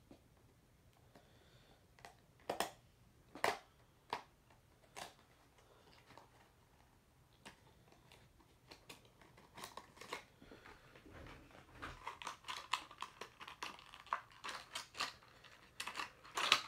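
Diecast model car's packaging being opened by hand: scattered sharp clicks and knocks, then from about ten seconds in a dense run of rapid crinkling and rustling.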